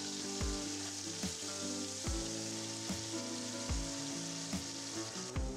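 Beef chunks searing in hot oil and butter in a cast iron pot: a steady, even sizzle. Background music with a steady low beat runs underneath.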